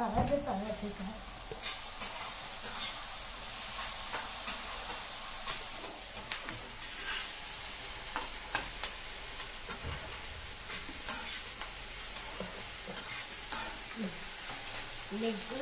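Chicken pieces with onion and capsicum sizzling in a wok as a slotted spatula stir-fries them, with irregular scrapes and taps of the spatula against the pan over a steady frying hiss.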